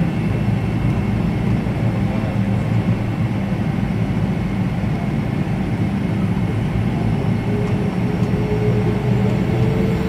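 Cabin noise of a Boeing 777-300 taxiing, heard from a seat by the wing: the steady low rumble of its jet engines with a thin high whine over it. A faint tone rises slightly near the end.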